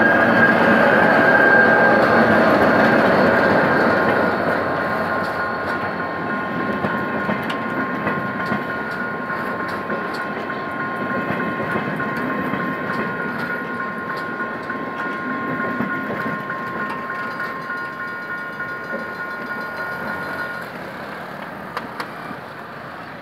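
GM GT-22 diesel locomotive passing close by with a passenger train, loudest in the first few seconds. The coaches then roll past with wheels clicking over the rail joints, and the sound fades as the train draws away. A steady high two-note tone runs under it and cuts off near the end.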